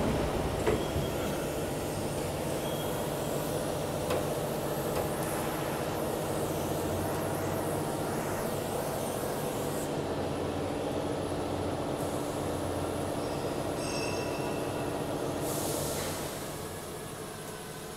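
Gear-driven roll forming machine running as steel sound-barrier panels pass through its rollers, which clamp the edges. It makes a steady mechanical drone with several steady tones in it, and quietens a little about two seconds before the end.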